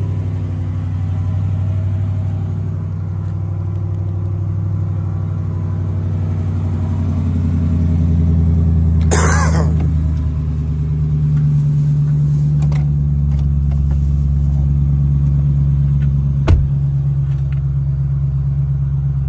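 Ford Raptor R's supercharged 5.2-litre V8 idling steadily after a cold start, its low exhaust note rising slightly in pitch partway through. A brief rustle comes about nine seconds in, and a sharp knock about sixteen seconds in.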